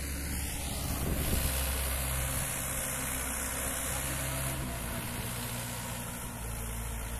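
Mahindra 575 DI XP Plus tractor's four-cylinder diesel engine running steadily under load as it pulls a cultivator through dry soil.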